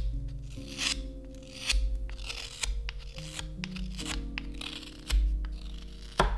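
Carving knife shaving a maple spoon blank in short scraping cuts, about one a second, over lofi background music with a steady bass line.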